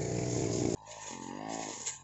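Backpack brush cutter engine running fast and steady, then after an abrupt cut about three quarters of a second in, quieter and revving up and down about once a second while cutting grass.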